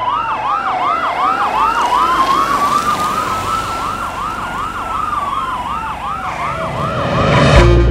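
Police car sirens: a fast yelp cycling about three times a second over a slower wail that rises and falls. Near the end a loud low hit comes in over them.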